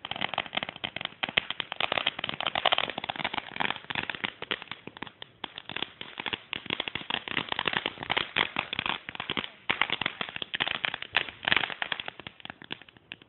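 Consumer fireworks crackling: a dense run of rapid small pops and cracks that goes on for about thirteen seconds, thinning out near the end.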